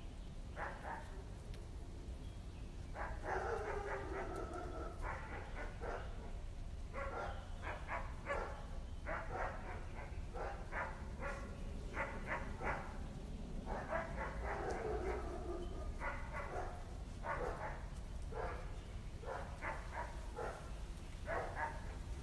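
A dog barking over and over, with short pauses between barks.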